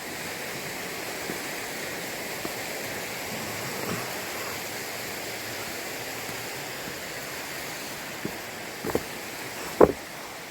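Steady rush of flowing water, like a stream or waterfall, with a few short knocks near the end.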